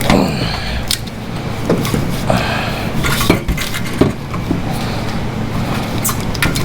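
Irregular metallic clinks and knocks as a Polaris Slingshot's stock exhaust is worked loose and pulled free.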